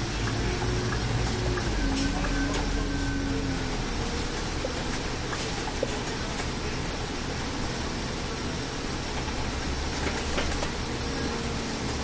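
Scania Citywide city bus under way, heard from the driver's seat: a steady low engine and drivetrain rumble with a faint whine that fades a few seconds in and comes back higher near the end.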